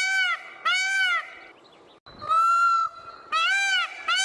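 Peacock (Indian peafowl) calling: a run of short, arched, honking calls at about three every two seconds. Partway through, a short gap is followed by one longer, flatter call, and then the quick run of calls resumes.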